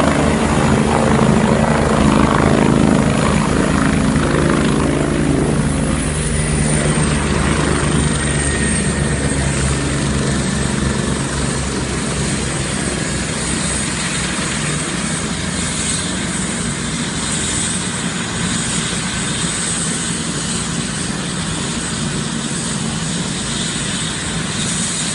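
Air-ambulance helicopter touching down and running on the ground: a strong low rotor beat for the first few seconds eases after about six seconds, leaving the steady run of the turbines and rotor with a high, even whine.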